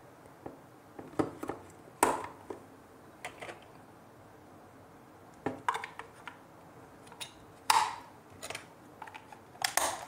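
Two batteries being pushed into the plastic battery compartment of a battery-powered doorbell, with a handful of separate clicks and knocks about a second or two apart as the cells seat against the springs and contacts and the back cover is clipped on near the end.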